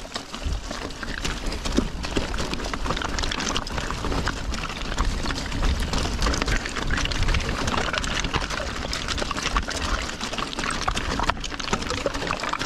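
Mountain bike rolling fast down a loose, rocky slate track: tyres crunching over stones and the bike rattling and clattering over the bumps, with a steady wind rumble on the microphone.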